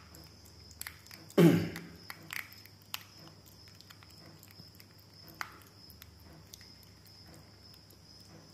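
Bear cuscus eating a piece of fruit, with scattered small clicks and knocks of chewing and handling. One short, loud sound drops sharply in pitch about a second and a half in. A steady high cricket trill runs underneath.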